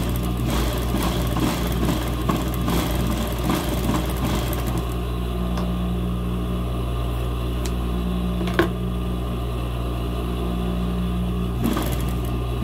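Industrial sewing machine running steadily as it stitches gathered fabric strips, with a sharp click about two-thirds of the way through.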